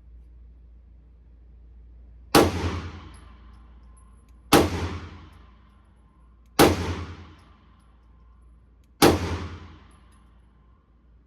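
Four pistol shots about two seconds apart, each a sharp crack followed by a long echoing decay in an indoor shooting range.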